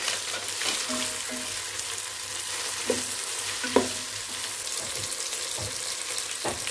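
Sliced tomatoes and green chillies sizzling in hot oil with onions in a nonstick pot while a wooden spatula stirs them, a steady frying hiss with two light knocks, about three seconds in and again near four.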